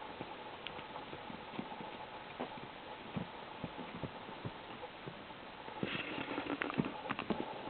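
A kitten scampering and playing, its paws making irregular light taps and knocks.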